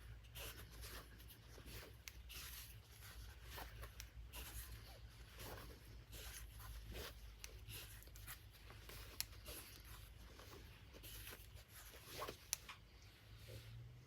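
Faint rustling and brushing of fabric squares being leafed through one by one from a layer-cake stack, with scattered light clicks and taps, a couple of them sharper.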